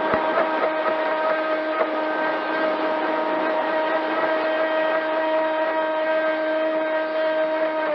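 Pro Boat Sonicwake 36-inch RC boat's brushless motor whining at a steady pitch on a 4S battery, picked up by an onboard camera, over water rushing along the hull. A few knocks from the hull hitting chop in the first two seconds.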